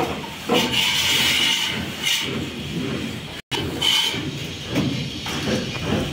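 Scraping and knocking from hand work with mortar and tools on a construction site, with hissing scrapes and scattered knocks. The sound breaks off for an instant about halfway through.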